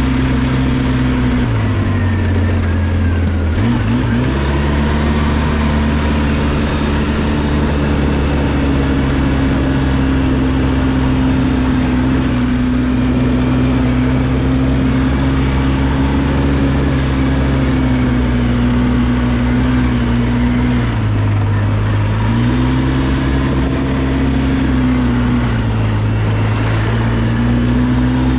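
Engine of a 2005 Polaris Sportsman MV7 military ATV running steadily while riding. Its pitch drops three times, about a second and a half in and twice near the end, as the throttle eases off, then climbs back as it opens again.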